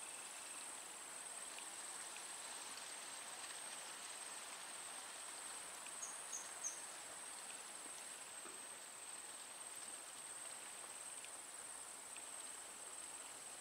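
Steady droning of insects such as crickets in open rural surroundings, with a continuous high-pitched buzz. Three short high chirps come about six seconds in.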